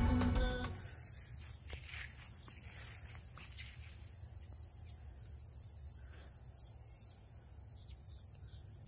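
Background music fading out in the first second, then crickets chirping steadily in a faint high trill over a low rumble.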